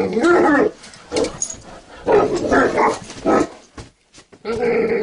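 English Mastiff vocalizing in protest at being told to get up: about four drawn-out grumbling moans that bend up and down in pitch, with short pauses between them.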